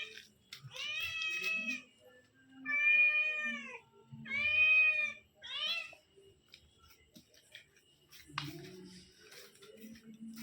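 A cat meowing repeatedly: four or five drawn-out meows in the first six seconds, then quiet apart from faint scuffing.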